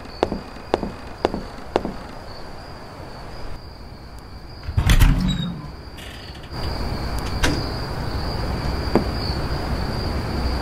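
Footsteps going down stairs, about two steps a second, fading out after about two seconds, then a single loud thump about five seconds in. From about six and a half seconds a steady low hum sets in, under a steady high-pitched whine that runs throughout.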